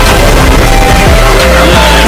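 A very loud, dense jumble of overlapping music and sound effects, many layered at once, with repeated heavy bass hits.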